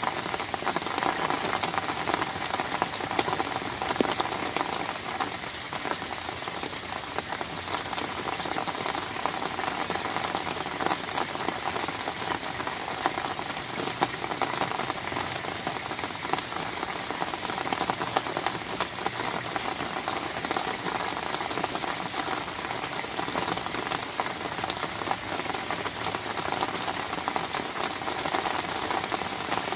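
Steady rain falling on an umbrella canopy overhead: a dense, even hiss of countless small drop taps that doesn't let up.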